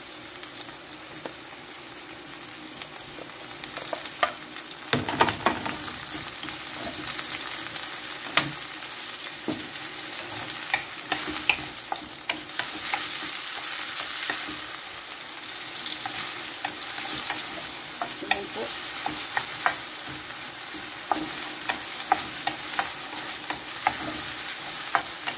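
Onion, garlic and freshly added tomato sizzling in hot oil in a wok, stirred with a wooden spatula that knocks and scrapes against the pan now and then.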